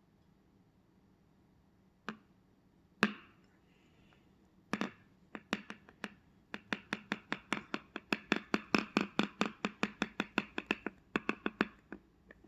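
Budgie pecking at a plastic pen: a few single sharp taps, then a fast run of taps at about five a second that stops shortly before the end.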